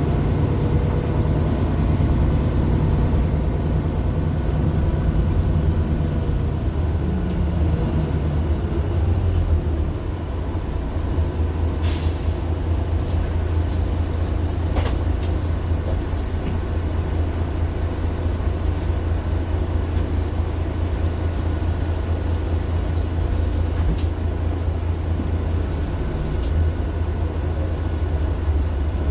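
Mercedes-Benz Citaro LE city bus heard from inside, its OM 457 hLA inline-six diesel running with a steady low drone. A few short sharp clicks or rattles come about halfway through and again near the end.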